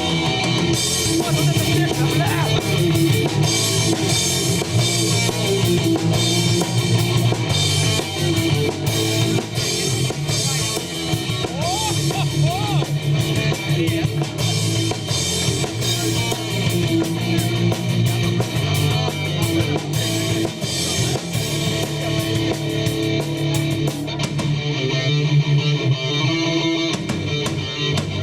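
Live rock band playing: drum kit, electric guitars and bass, the drums dropping out for a moment near the end.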